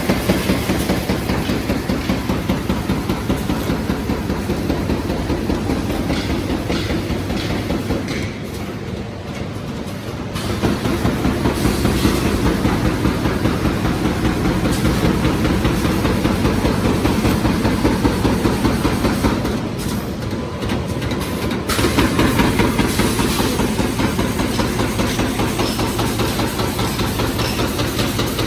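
High-speed double-line roll bag making machine running, a fast, even rhythmic clatter from its repeating sealing and cutting cycle. Its sound drops briefly twice, about a third and two-thirds of the way through.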